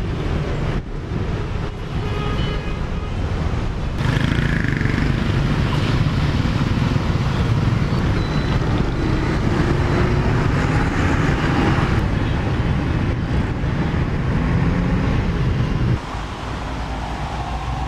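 Heavy, slow-moving road traffic: many car, bus and motorcycle engines running together in a dense rumble, with short horn beeps about two seconds in. From about four seconds in the sound gets louder and closer as a vehicle's tyres roll through standing water on a flooded road, and it drops back to the general traffic noise near the end.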